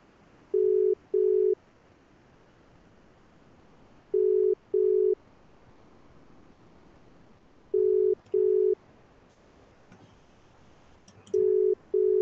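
Telephone ringing tone: pairs of short low beeps, four pairs in all, repeating about every three and a half seconds. This is the double-ring cadence of a telephone ringback tone.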